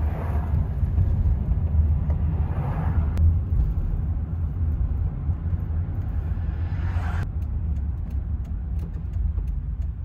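Steady low road rumble of a minivan driving slowly through town, heard from inside the cabin.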